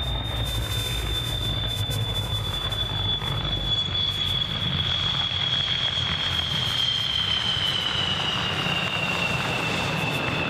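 Twin turbofan engines of a MiG-29 on its landing rollout: a steady high whine that slowly falls in pitch over a low engine rumble as the jet rolls past.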